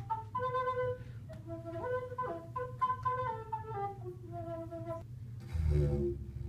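A flute playing a lilting melody of single notes. About five and a half seconds in it gives way to the low steady drone of a didgeridoo.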